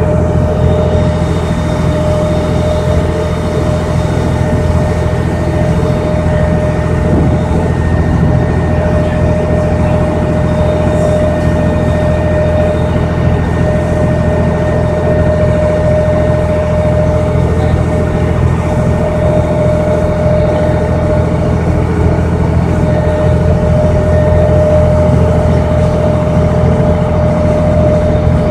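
A boat's engine running steadily at cruising speed, heard from on board. It makes a low drone with a steady whining tone above it.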